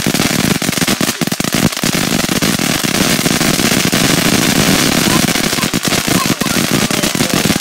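Ground fountain firework spraying sparks, a steady loud hiss packed with rapid little crackles that goes on without a break.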